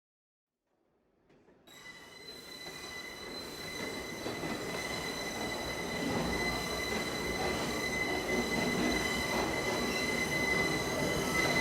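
About a second of dead silence, then an R179 subway train running fades in and grows steadily louder. Its wheels squeal at a steady high pitch over the rumble.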